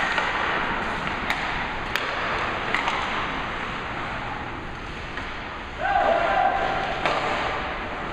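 Ice hockey play in an indoor rink: a steady hiss of rink noise broken by a few sharp clacks of sticks and puck in the first three seconds. About six seconds in, a loud shout is held for about a second.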